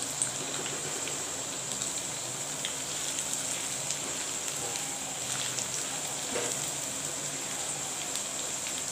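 Cauliflower 65 pieces sizzling steadily in shallow hot oil in a kadai, with curry leaves and green chillies frying alongside, and a few light ticks of a slotted spatula against the pan.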